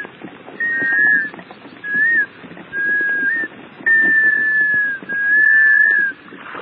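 Black scoters calling: a series of about five clear, mournful whistles, each a half-second to a second long, some held level, some bending up at the end, a few doubled at two pitches as two birds overlap. A steady low rumble lies underneath.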